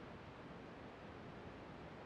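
Faint steady hiss on the aircraft's intercom audio feed between radio transmissions.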